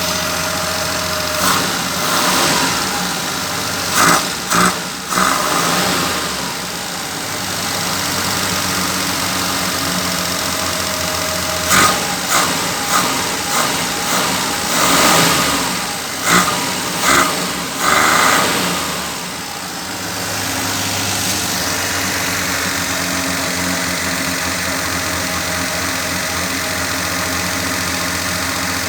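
Car engine idling, revved in several short blips a couple of seconds in and again around the middle, then settling back to a steady idle.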